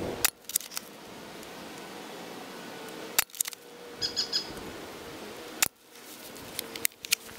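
Several sharp snaps from a Crown Type 96 Junior spring-powered air-cocking airsoft rifle firing 0.12 g BBs, about one to three seconds apart.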